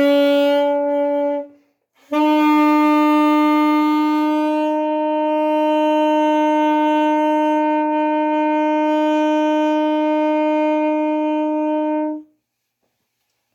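A solo wind instrument plays the closing phrase of a tune: a short note, a brief pause for breath, then one long held final note of about ten seconds that stops cleanly.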